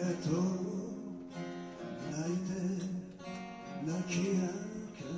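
A man singing a slow ballad while strumming a steel-string acoustic guitar. His sung notes swell and fall in long phrases over the ringing chords.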